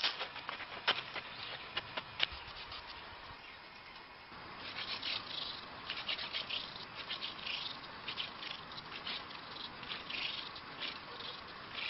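Fire-making with a hand drill: a wooden spindle spun back and forth between the palms grinds into a wooden hearth board, giving scratchy rubbing strokes at about two a second. Before that, a few light wooden clicks as a long stick is handled.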